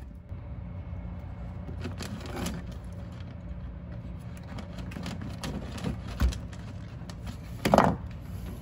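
Hands handling wires and small heat-shrink butt connectors, making a few light knocks and rustles, with a louder rustle near the end, over a steady low hum.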